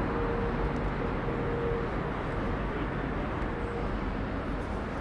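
City street ambience: a steady hum of traffic and passing vehicles, with a faint steady tone during the first two seconds.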